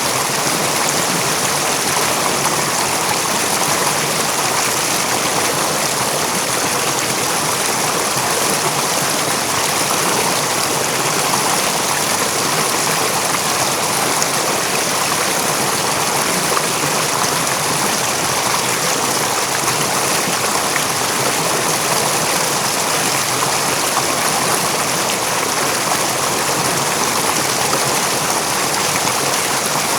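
A river's running water, a steady rushing flow with a bright hiss.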